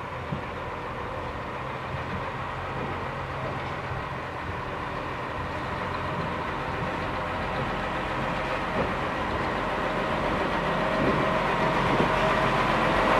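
Track maintenance motor car approaching along the rails, its engine running steadily and growing louder as it nears, with a few knocks of wheels on rail joints near the end.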